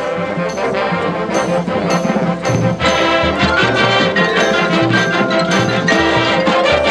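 High school marching band playing at full volume, brass over percussion keeping a steady beat.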